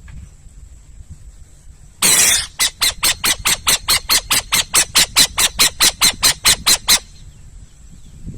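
Owl calling: one harsh screech about two seconds in, then a rapid run of about twenty short harsh notes, roughly four a second, that stops abruptly after about five seconds.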